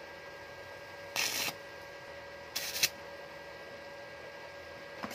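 Stick (arc) welder crackling in two short bursts of hiss about a second and a half apart, over a steady electrical hum, as a stainless steel patch is welded onto a bicycle's head tube.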